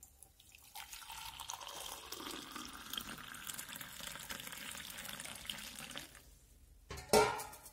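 Hot water poured in a thin stream from a spout into a mug of green tea leaves: a steady splashing pour lasting about five seconds that stops about six seconds in. A brief, louder sound follows near the end.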